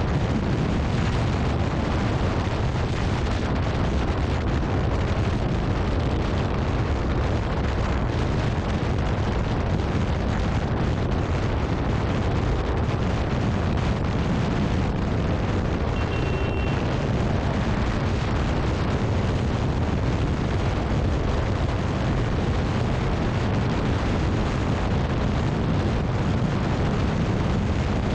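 Wind buffeting the camera microphone on a scooter at highway speed, about 85–90 km/h: a steady low rumble that covers the engine and road noise. A short high horn beep comes about halfway through.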